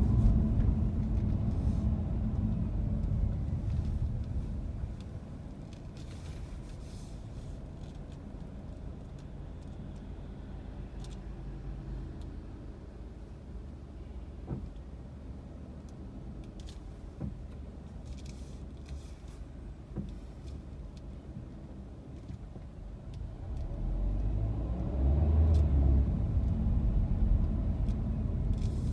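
Car driving: a low engine and road rumble that eases off to a quieter hum for most of the time, then builds again near the end as the car picks up speed.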